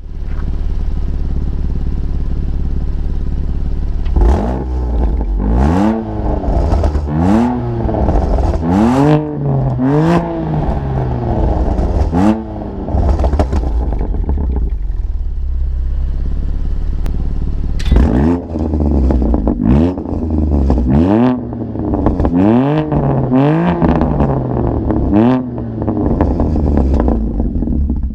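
BMW M2 Competition's twin-turbo straight-six idling through a Remus axle-back exhaust with connecting pipes in place of the stock resonator. It is blipped in two series of quick revs that rise and fall, the first starting about four seconds in and the second about eighteen seconds in, and it settles back to idle between and after them.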